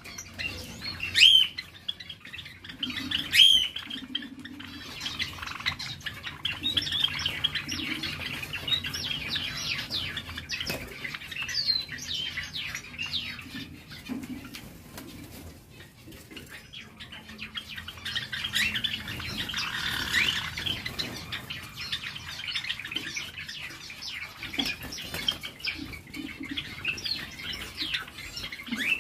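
A flock of Java sparrows chirping, with many short overlapping calls, some wing fluttering and a few louder sharp calls near the start. The calls come from young adult males squabbling as they pair up.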